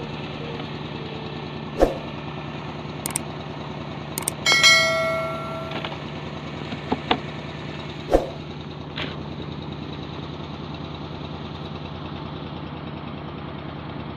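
Steady low hum of an engine idling, with a few sharp knocks, the loudest about two seconds and eight seconds in, and a short high-pitched beep-like tone about four and a half seconds in.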